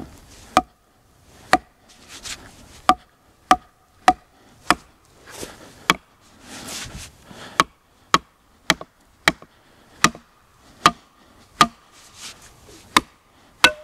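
A short length of wood, sawn halfway down its length, is struck end-first again and again against a hard fallen log to open the saw cut into a split. It makes a series of sharp wooden knocks, roughly one or two a second at an uneven pace, some with a short ring.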